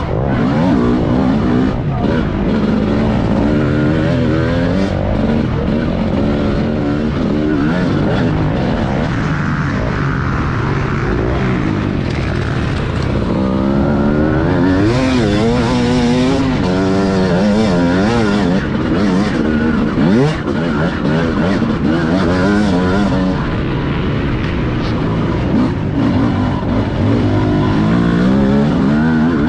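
TM Racing 250 motocross bike's engine heard close up from on board, revving hard and dropping back again and again as the rider accelerates, shifts and rolls off the throttle over the dirt track.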